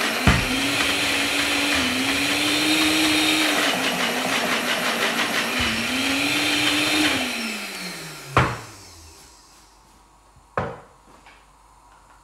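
Personal blender motor running on a thick pesto of basil, pine nuts, parmesan and olive oil. Its pitch sags and recovers a few times under the load, then falls away as the motor winds down about seven seconds in. Two sharp knocks follow as it stops.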